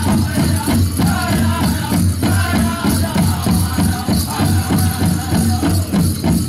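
Pow wow drum group playing a steady, even beat on a big drum while the singers sing high over it, with the dancers' bells jingling in time.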